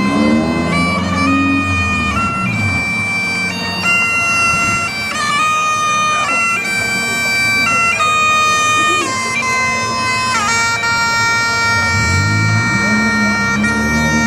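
Bagpipes playing a melody of held notes that step up and down, over a steady drone.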